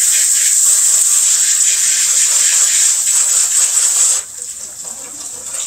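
Kitchen tap running steadily into the sink, a loud even hiss that cuts off suddenly about four seconds in as the water is turned off.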